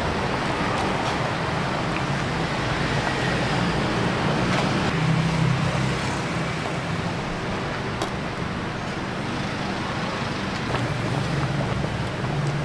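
Road traffic running past, a steady noise with an engine's low hum that swells about five seconds in and again near the end. A few faint clicks sound over it.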